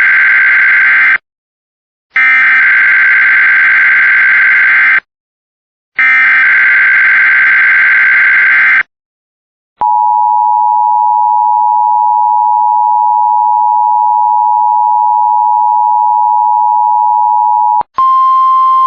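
Emergency Alert System Required Weekly Test tones: three loud bursts of SAME header data, a buzzy digital warble, each about three seconds long with a one-second gap between them. Then the steady two-tone EAS attention signal is held for about eight seconds. Just before the end a single steady tone starts.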